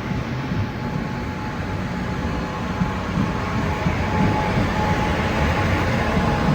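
Metro-North passenger train with a Siemens SC42-DM locomotive running at the station platform, a steady rumble with a faint whine that grows gradually louder.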